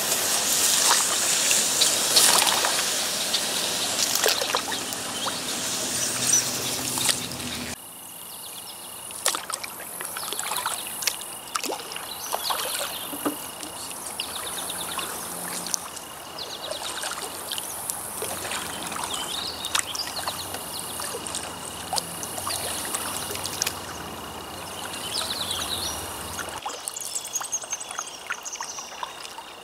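Water trickling and splashing around a kayak paddle, louder for the first several seconds and then quieter, with birds calling. A thin steady high tone comes and goes through the quieter part.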